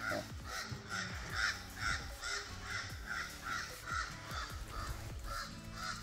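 A bird calling over and over in short, evenly spaced notes, about two a second.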